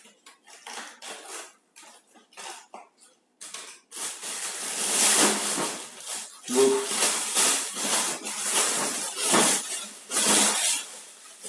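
Iceberg lettuce leaves torn off the head in short, crisp crackles. From about four seconds in, a thin plastic bag rustles and crinkles loudly as the lettuce is pushed into it.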